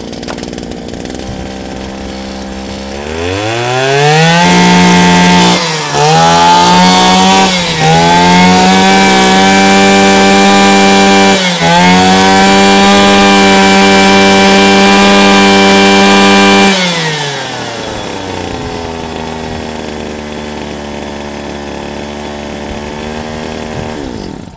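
Small two-stroke engine of an 18–20 cc Shindaiwa brush cutter, just pull-started, idling, then revved to high speed. It is held there with three brief throttle dips, drops back to idle after about 17 seconds, and is switched off at the very end. It runs sharp and picks up smoothly on the throttle, the sign of an easy-starting engine in good order.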